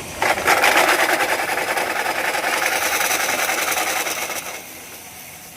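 Geared DC motor running with a rapid rattling whir, then cutting off about four and a half seconds in.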